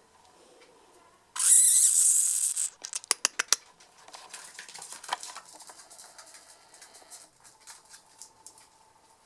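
Puppies' claws ticking and pattering on a hard floor. About a second and a half in, a loud rustling hiss lasts just over a second, followed by a quick run of sharp clicks.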